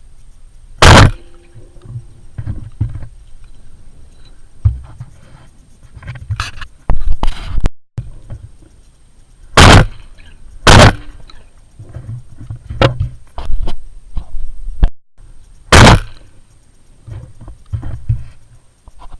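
Four gunshots: one about a second in, two about a second apart near the middle, and one about three quarters of the way through. Wind rumbles on the microphone between them.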